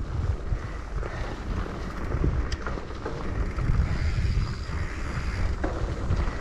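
Wind buffeting the microphone of a bike-mounted or handheld camera while mountain biking, an uneven low rumble with a few light clicks and rattles.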